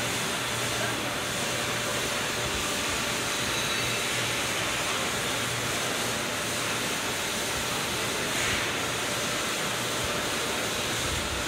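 Steady mechanical running noise with a faint low hum, unchanging in level, as from workshop machinery.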